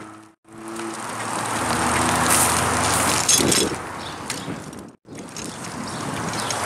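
Road traffic passing: a rush of vehicle noise that swells and fades, cut off abruptly to silence twice.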